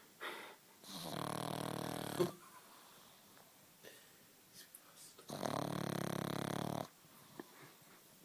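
A pug snoring while fast asleep: two long snores, each about a second and a half, a few seconds apart, with quiet breathing between.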